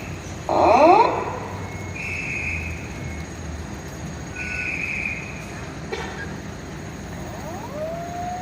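Fire engine warning sounds: a short, loud rising siren whoop about half a second in, over a beeping alarm that repeats about once a second, then a siren starting to wind up near the end.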